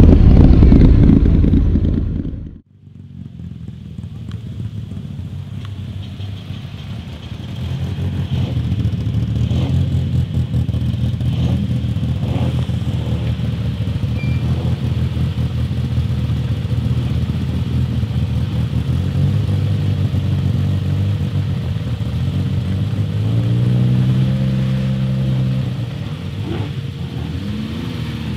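Car engine running loudly in the cabin, cut off abruptly about two and a half seconds in. Then rally car engines idling steadily in a queue, with one engine revving up and dropping back near the end.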